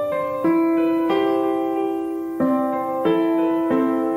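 Background piano music: soft notes and chords struck every half second or so, each held and fading.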